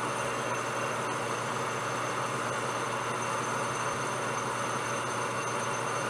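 Metal lathe running steadily while a boring bar cuts out the bore of a brass bar, an even machining hiss and motor hum.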